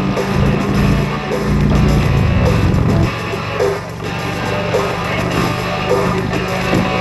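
Music led by guitar, in a rock style.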